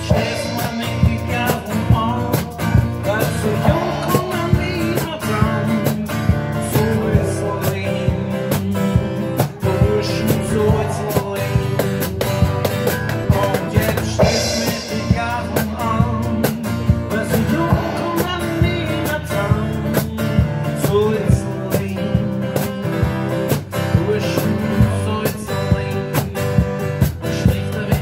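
A live Austropop song by a duo: strummed acoustic guitar and male singing over a steady percussion beat.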